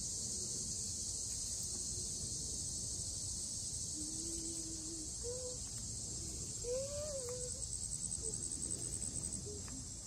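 A steady, high-pitched chorus of summer insects buzzing, joined in the latter half by a faster pulsing trill for about two seconds, over a low rumble.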